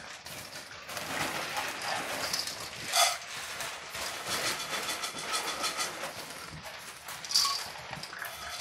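A litter of pit bull puppies crowded around a food bowl, eating: a busy, continuous mix of chewing and jostling, with paws scrabbling on newspaper. Two brief, sharper sounds stand out, about three seconds in and near the end.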